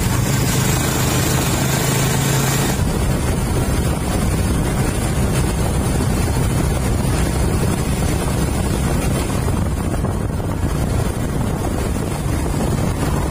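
A motor vehicle travelling on the road, its engine running steadily, with wind rushing over the microphone. A low engine hum is clear for the first few seconds, then the wind rumble covers it.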